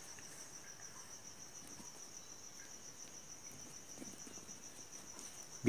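Faint cricket chirping, a steady high trill with an even pulse. A few faint scratches of a pen writing on paper are heard under it.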